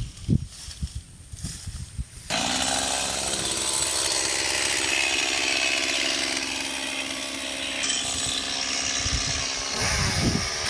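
Mini chainsaw starting up abruptly about two seconds in and then running steadily, after a few soft knocks and rustles.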